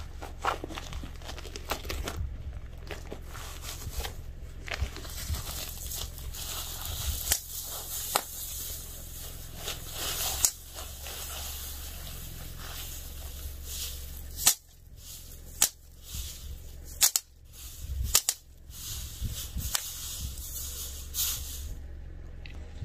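Objects being crushed under a car tyre: a run of crackling and crunching with sharp pops and cracks, the loudest coming close together about two-thirds of the way through. A low steady hum underneath stops near the same point.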